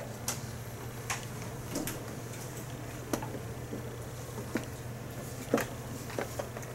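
Classroom room noise: a steady low hum with scattered small clicks and taps, the loudest about five and a half seconds in.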